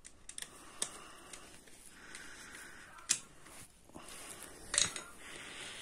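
A screwdriver turning the screw of a motorcycle battery's positive terminal to clamp a wire: small scattered metal clicks and scrapes, with a few sharper ticks.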